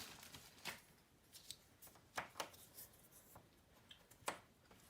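Small magnetic plastic cubes being put onto a refrigerator door one after another: a string of faint, sharp clicks and taps, the strongest one a little after four seconds in.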